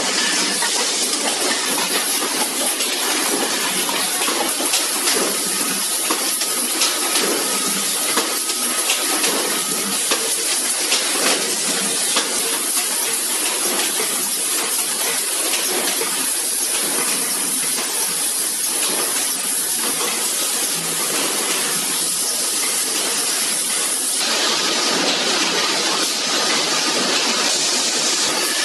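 Automatic steel paint pail production line running: a steady machine hiss with frequent clicks and clanks from the pails and the pressing heads. The noise changes character near the end.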